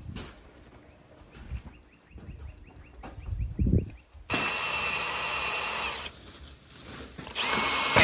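Handheld power tool run on the bent steel bolts of a sawmill's log backstops, in two bursts: about two seconds, then a shorter one near the end, each stopping abruptly. Light knocks and a quick run of clicks come before the first burst.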